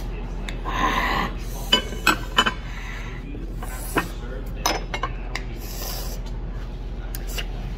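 Shellfish shells and utensils knocking against a ceramic plate and bowl: a brief rasp of shells being handled, then about five sharp clicks and clinks over a few seconds, over a low steady hum.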